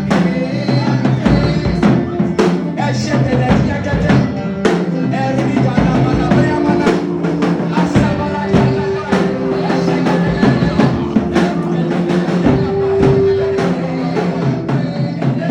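Gospel worship music: a band with steady drum kit beats and bass under held keyboard notes.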